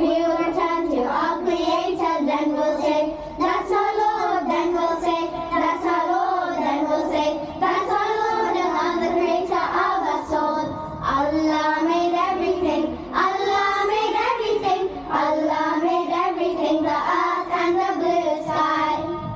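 Children singing a religious song in English, a steady sung melody that fades out at the very end.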